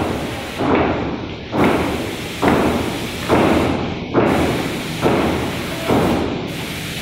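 Airless paint sprayer spraying primer. Its pump thumps in a steady rhythm, about one stroke a second over a constant hiss, and the thumps stop near the end, leaving the hiss alone.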